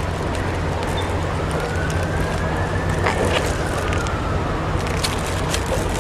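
Steady outdoor background noise: a low traffic-like hum and hiss, with a faint tone that slowly rises and then falls in pitch through the middle, and a few faint clicks.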